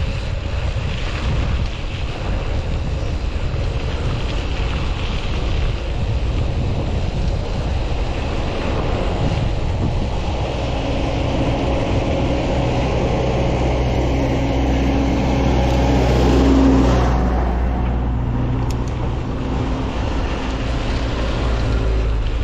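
Wind buffeting the microphone over the rumble of mountain-bike tyres on a dirt road while riding. A low steady hum joins in the second half and is loudest about three-quarters of the way through.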